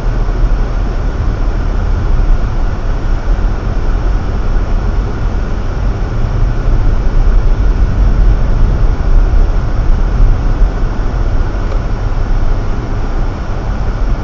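Steady road and tyre rumble of a car driving on a snow-covered road, with the engine running beneath it, heard inside the cabin through a dashcam's built-in microphone.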